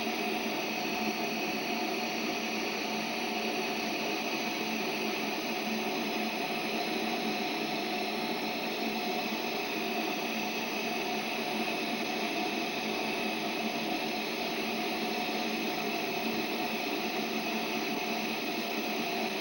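Gas torch flame hissing steadily and evenly, with no change in pitch or strength.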